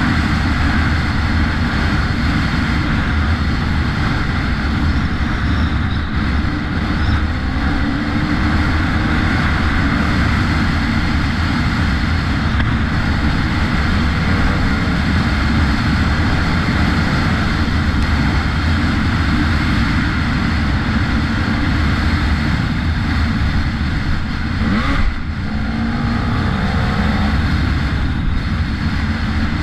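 Enduro dirt bike engine running at speed, loud and steady. Its sound drops briefly and shifts in pitch about 25 seconds in.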